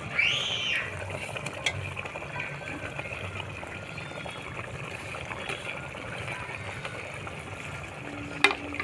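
Curry gravy simmering in an iron kadai over a wood fire, a steady bubbling hiss, with a few sharp clicks. A brief high tone rises and falls just after the start.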